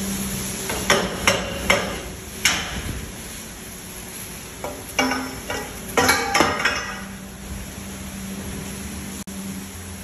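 Dairy milking plant running its wash cycle: a steady hum, with a run of sharp knocks and clatters in the first seven seconds.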